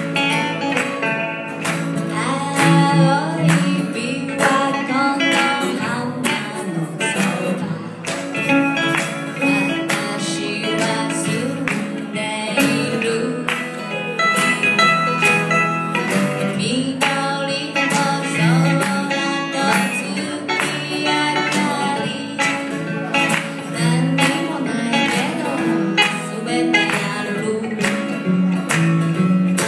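Acoustic guitar strummed and banjo picked together in a country/bluegrass-style duo, with a woman singing over them.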